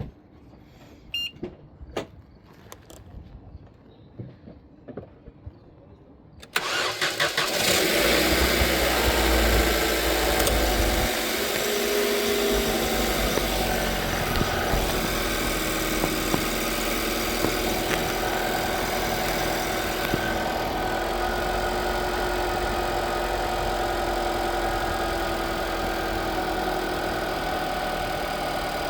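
2020 Nissan Sentra's 2.0-litre four-cylinder engine starting on a very low battery about six seconds in, after a few faint clicks. It runs louder for a few seconds, then settles into a steady idle.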